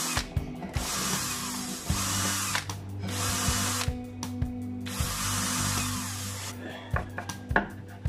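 Cordless drill boring into plywood, running in several bursts of one to two seconds with short pauses between them as the bit cuts a shallow recess for a cabinet lock's bolt. A few light knocks come near the end.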